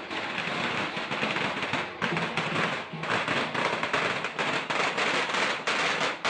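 A long string of firecrackers going off in a rapid, continuous crackle.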